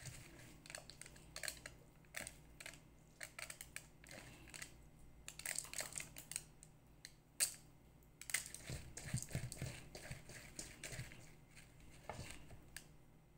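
Fingers scooping and pressing a wet raw-rice and herb stuffing in a stainless steel bowl: faint, irregular squishing and scraping, with one sharper click a little past halfway.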